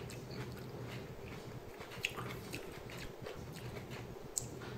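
Faint chewing of a mouthful of raw, thick-walled Shepherd's Ramshorn sweet pepper, with scattered small clicks.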